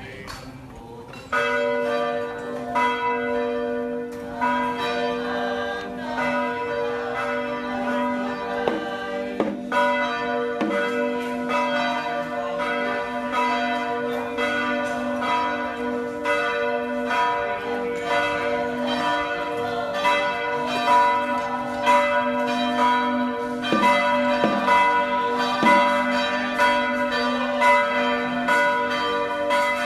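Church bells ringing continuously, starting suddenly about a second in, with repeated strikes overlapping into a sustained peal.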